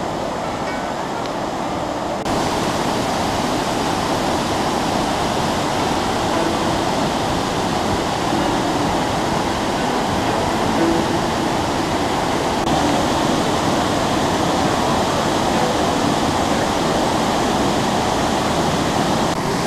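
Waterfall: a steady rush of water pouring over a wide rock ledge, growing louder about two seconds in.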